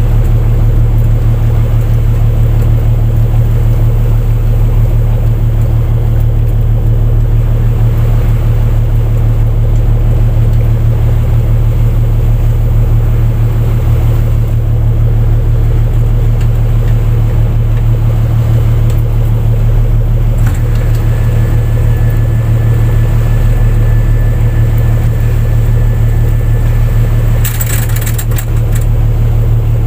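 Fishing boat's engine running steadily, a deep unbroken drone. About two-thirds of the way through, a thin high tone joins it for several seconds, and a brief clatter of sharp knocks comes near the end.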